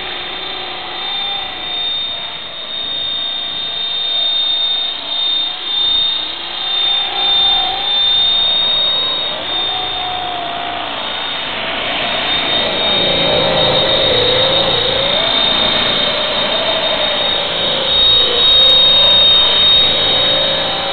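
EXI 450 electric RC helicopter flying: a steady high whine from the motor and gears over a lower rotor hum. The hum wavers up and down in pitch as it manoeuvres, and the sound swells and dips, loudest near the end as it comes in close.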